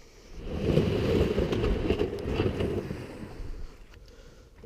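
Wind buffeting the microphone: a rushing gust that builds about half a second in and dies away near the end.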